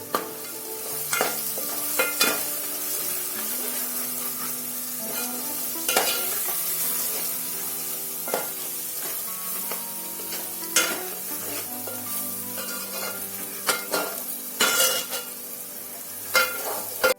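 Masala of onion, tomato, ground paste and spices sizzling as it fries in oil, with a spatula stirring and clicking against the pan every second or two. Soft background music underneath.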